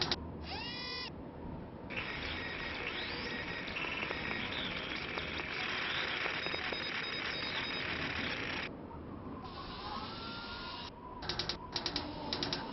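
Added sound effects for the Curiosity rover's machinery: a short rising whir about half a second in, then a steady noisy mechanical whirring for several seconds, and bursts of rapid ratchet-like clicking near the end.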